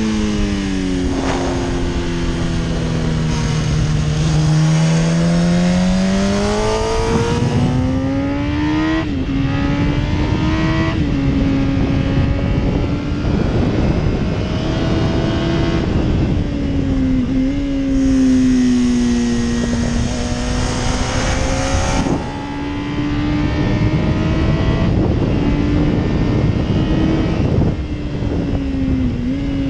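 Yamaha R1 RN12's 998 cc inline-four engine running hard around a race track, its pitch sliding down through corners and climbing out of them, with a sudden jump at each gear change, several times over. Steady wind rush sits under the engine.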